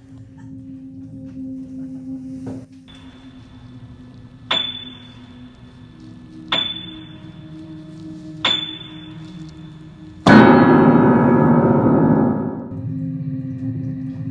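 Ominous film score: a steady low drone with three sharp hits about two seconds apart, each leaving a high ringing tone, then a much louder crashing hit about ten seconds in that dies away over a couple of seconds.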